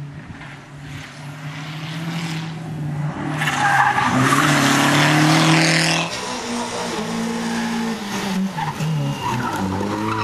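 Rally cars driven hard on a stage, engines held at high revs with the pitch shifting through gear changes. From about three and a half to six seconds a car passes close with a loud rush of engine and tyre noise, then another engine pulls away with rising revs near the end.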